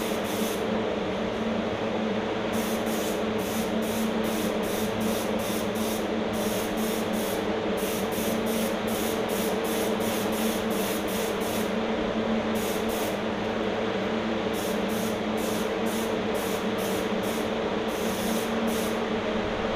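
Air-fed HVLP spray gun hissing in many short bursts as paint is sprayed onto an engine block, over the steady hum of an air compressor running.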